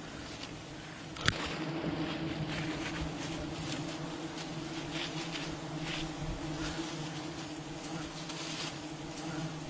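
Swarm of honeybees buzzing around their exposed comb, a steady low hum that swells after a sharp click about a second in: a colony disturbed by smoking and comb removal.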